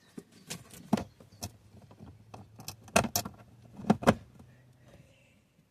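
A run of sharp metallic clicks and knocks, several in quick pairs and loudest about three and four seconds in, as an aftermarket gear knob is worked onto a car's gear lever.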